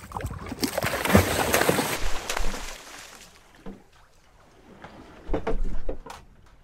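Water splashing and sloshing at the side of a small boat as a released blue shark thrashes free, loudest in the first two seconds and fading away. A brief clatter of knocks about five and a half seconds in.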